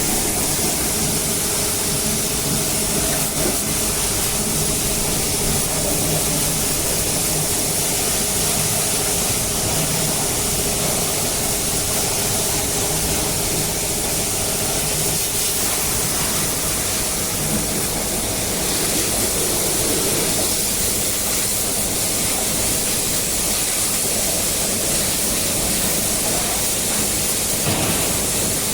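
High-pressure water spray hissing steadily, with a steady machine hum underneath.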